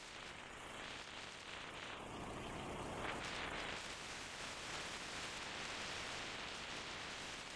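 Steady rushing wind noise on the microphone of a camera moving at road speed on a motorcycle, a hiss with no clear engine note. It swells a little about two to three seconds in.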